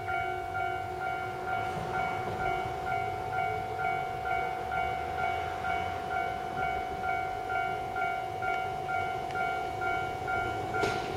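Japanese level-crossing warning bell ringing its electronic clang about twice a second over a steady tone. Near the end a rising tone and two sharp clacks come in, as a train draws near.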